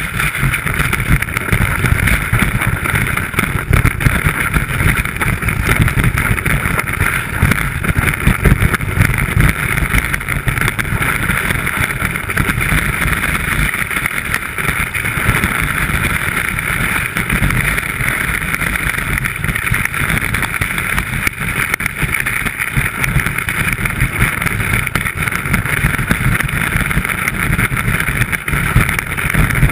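Skis running over snow, picked up through a camera mounted on the ski: a steady, loud rumble with a hiss over it that does not let up.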